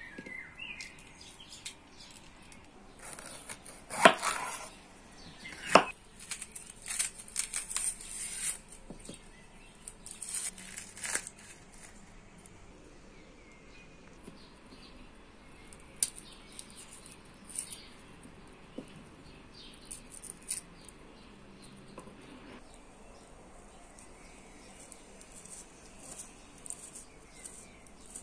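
Kitchen food-preparation handling: rustling and scraping, with two sharp knocks about four and six seconds in, then scattered light taps.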